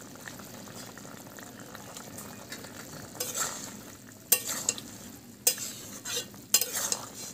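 A pot of potato and raw-banana curry simmering, then a spatula stirring it and scraping against the metal pot in about five strokes over the second half.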